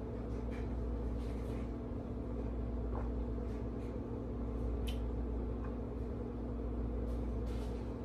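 Steady low electrical hum of a room or appliance, with a few faint small clicks and taps.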